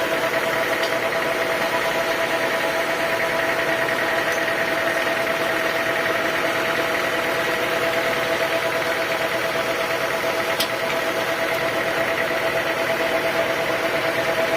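Sawmill machinery running steadily with a constant hum and whine.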